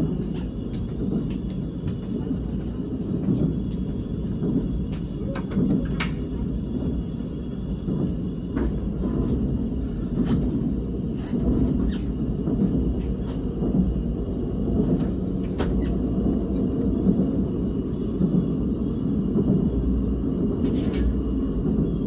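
KTX-Eum electric train heard from inside the passenger cabin at speed: a steady low rolling rumble, with scattered faint clicks and a thin steady high whine.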